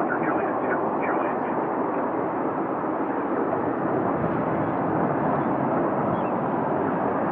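Boeing 777 freighter's twin jet engines running as the airliner rolls along the runway: a steady, even rush of noise with no change in level.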